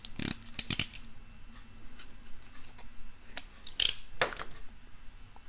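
The edge of a foil-laminate MRE peanut butter pouch being snipped off, with crisp clicks and crinkles of the pouch in the first second, then two short, sharp cutting rustles a little under four seconds in.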